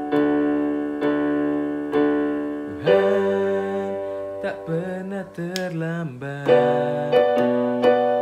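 Yamaha portable electronic keyboard played with a piano voice: held chords struck about once a second, then a run of quicker notes about three seconds in, then held chords again.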